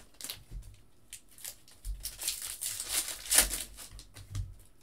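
Foil trading-card pack wrappers crinkling and rustling in the hands, with cards shuffled against them; the rustling is sparse at first and loudest about three and a half seconds in.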